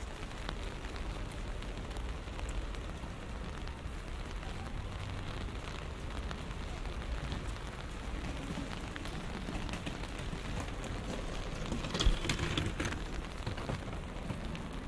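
Steady rain falling on a city street, with fine scattered drop ticks. A single sharp knock about twelve seconds in is followed by a brief louder rush.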